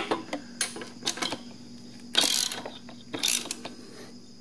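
Socket ratchet clicking in several short bursts as it tightens an engine-guard mounting bolt, the loudest burst about two seconds in, over a faint steady low hum.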